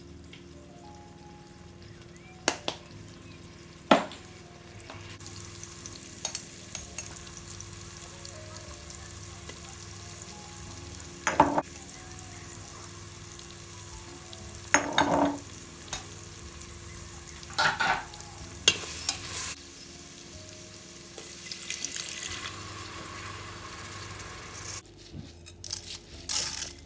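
Food frying in a pan: a steady sizzle sets in about five seconds in, broken by several sharp knocks and scrapes of a utensil stirring.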